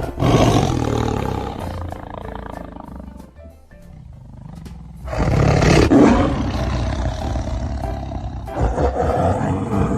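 Tiger roaring three times: a long roar at the start that fades out, another about halfway through, and a shorter one near the end, with background music underneath.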